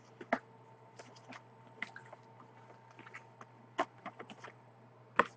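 Faint scattered crinkles and clicks of cellophane shrink wrap on a trading card box being turned over in the hands, over a low steady hum.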